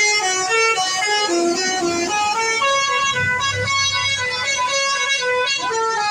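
Bus's telolet basuri musical horn playing a fast melody, one clear note after another in quick steps. A brief low rumble comes up about halfway through.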